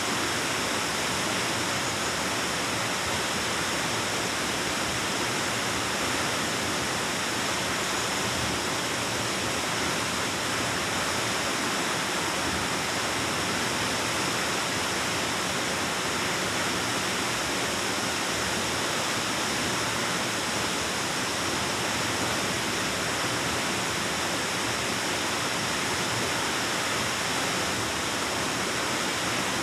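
Waterfall pouring steadily, a dense, unbroken rush of water with no single splashes standing out.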